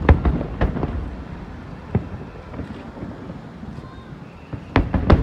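Aerial fireworks bursting: a quick run of sharp bangs at the start, a single bang about two seconds in, and another rapid cluster near the end, with a low rumble between.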